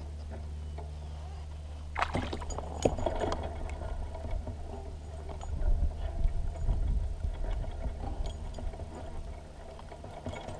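A hooked bass being landed beside a plastic kayak: irregular splashes at the water surface and knocks and rattles against the hull as the fish is brought in and lifted by hand, over a steady low rumble.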